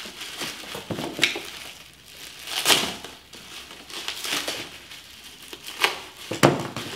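Plastic bags crinkling and rustling as small wrapped parts are handled and slit open with a cutter, with louder crackles about three seconds in and again near the end.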